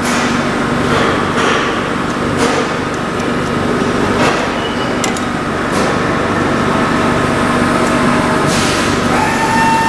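A steady mechanical running noise with several held tones and a few sharp clicks scattered through it.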